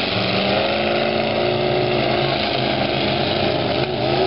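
Engines of several demolition derby pickup trucks running hard together: a steady engine drone that drifts a little in pitch, over a haze of arena noise.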